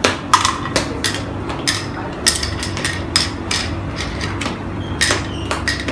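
Congkak game pieces dropped one at a time into the holes of the board, a series of small hard clicks, roughly two or three a second. This is the sowing move of a turn.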